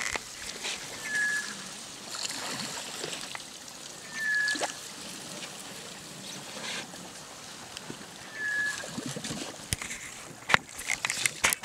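Water sloshing and trickling around a mokoro dugout canoe as it is poled through shallow reedy water, with a few sharp knocks near the end. A short high note repeats about every three to four seconds.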